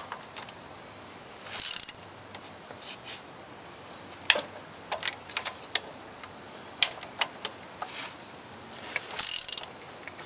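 Hand socket ratchet clicking as valve cover bolts are run down and tightened. It ratchets in two short runs, about two seconds in and again near the end, with scattered single clicks and taps of the tool between.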